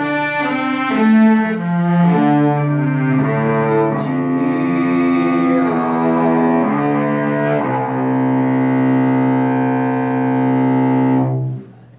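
Cello played with the bow: a slow phrase of sustained single notes, one after another, ending in a long held note that stops near the end.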